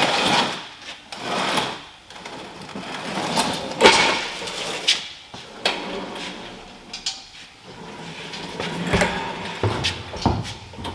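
Irregular metal clanks, knocks and scrapes of tools and parts being worked on a car during engine removal, with no steady rhythm.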